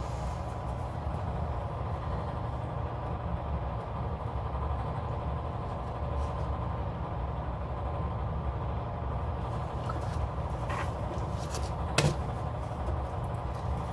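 Steady low background hum, with a few light clicks near the end and one sharper click about twelve seconds in.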